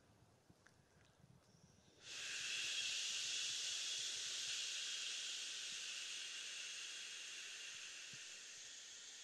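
A long exhaled "shhhh", the liver sound of the Six Healing Sounds qigong practice. It starts suddenly about two seconds in and fades slowly.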